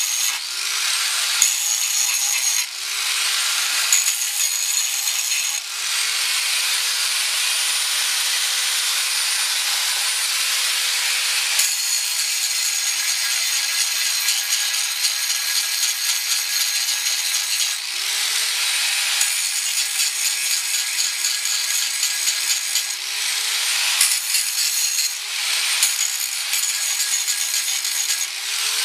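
Corded angle grinder cutting into steel, its motor whine sagging in pitch each time the disc bites and climbing back between passes, with a long hard cut in the middle.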